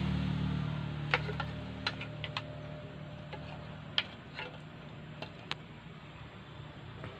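Irregular light wooden clicks and clacks, about ten scattered taps, as wooden-sheathed knives are set down and shifted against each other on a stack of wooden boards; the sharpest knock comes about four seconds in. A low steady hum fades out during the first second.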